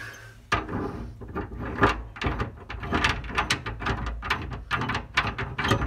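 Rapid, irregular metal clicking and scraping of an Allen wrench turning a bolt in a Hi-Lift jack bed-rail mount, snugging it up.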